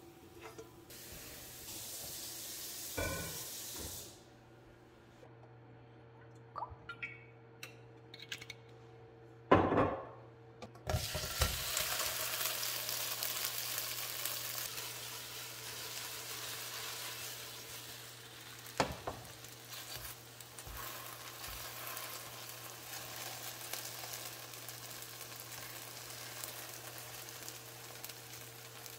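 Korean rice cakes (tteok) frying in oil in a nonstick pan: after a few clicks and one sharp knock, a steady sizzle sets in about a third of the way through and keeps going, with the odd knock as a silicone spatula moves the cakes.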